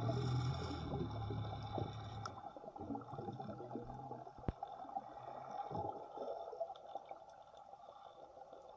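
Water gurgling and sloshing around the microphone while snorkeling, with a low steady hum that fades out a little over halfway through and a single sharp click about four and a half seconds in.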